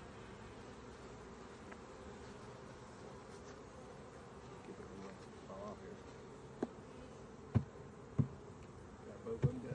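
Honeybees humming steadily over an open hive. A few sharp knocks late on as the wooden hive frames and boxes are handled.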